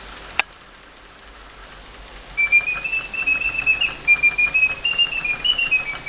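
Eschle singing-bird cage automaton, its restored bellows blowing the whistle: a single sharp click about half a second in, then from a little over two seconds in a loud whistled birdsong that steps up and down in pitch with a rapid fluttering trill.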